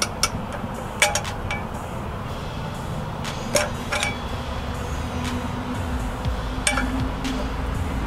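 Pliers clinking against the steel spacer in a KTM 125 SX rear wheel hub as the spacer is worked loose to be pulled out: several sharp metallic clinks at uneven intervals.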